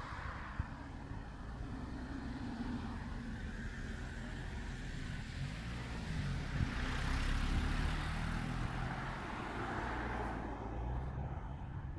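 A road vehicle passing, swelling to its loudest about seven seconds in and then fading, over a steady low rumble.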